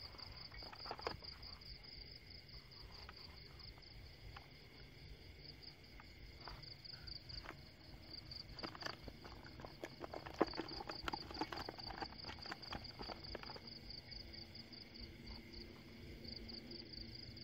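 Night insects chirping in a steady, fast-pulsing high trill, with footsteps and rustling through dry grass and weeds that get busier about halfway through.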